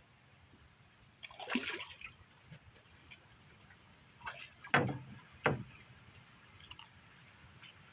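Water splashing and dripping in separate short bursts: a splashy rush about one and a half seconds in, then a few sharper splashing knocks a little before five and about five and a half seconds in.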